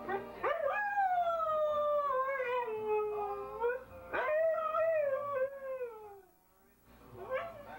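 Siberian husky howling: two long howls, each rising sharply and then sliding slowly down in pitch, the first about three seconds long and the second shorter. After a short pause another howl begins near the end.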